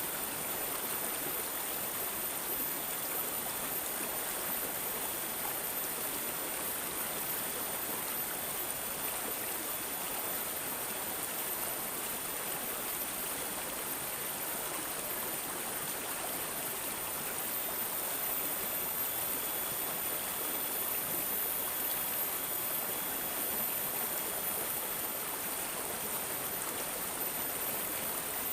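Running water babbling and gurgling steadily, like a small stream over stones.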